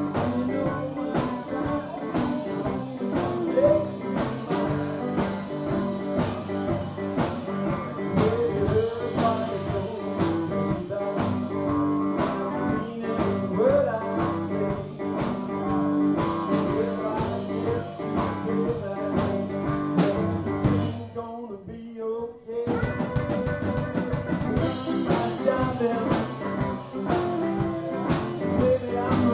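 Live blues band playing: electric guitars over a drum kit keeping a steady beat. About three-quarters of the way through the band stops for a moment, then comes back in.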